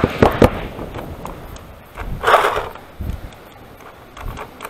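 Paintball markers firing: a few quick sharp shots in the first half-second, then scattered fainter pops, with a brief noisy burst about two seconds in.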